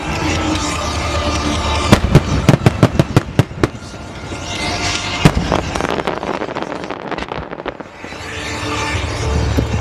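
Fireworks display: a rapid run of sharp cracks and bangs about two seconds in, from crackling aerial shells, then a single loud bang around five seconds. Near the end comes a swelling low rush as a volley of fan-shaped ground mines fires.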